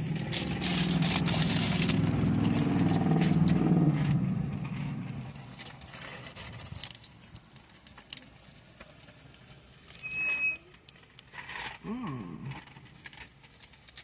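Crunching bites and chewing of a fried chicken egg roll, loudest in the first four seconds over a low steady hum, then quieter chewing and small clicks. A short high beep sounds about ten seconds in.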